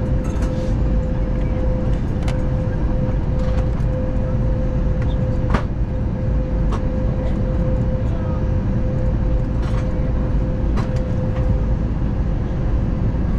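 Airbus A321neo cabin noise during descent: a steady rush of airflow and engine drone with a thin, steady hum, and scattered faint clicks.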